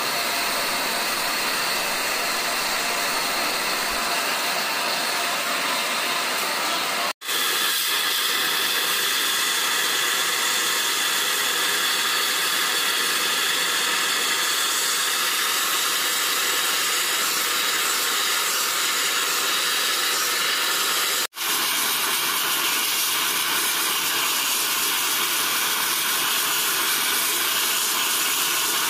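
Gas torch flame hissing steadily into a crucible as it melts silver, with two brief breaks in the sound about 7 and 21 seconds in.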